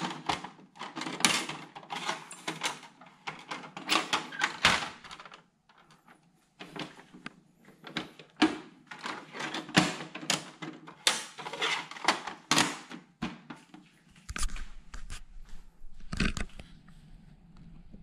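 Plastic clicks, knocks and rattles from an older Canon Pixma inkjet printer being handled, its front paper output tray folded open and its top cover worked, in irregular clusters with a brief quiet pause about five seconds in.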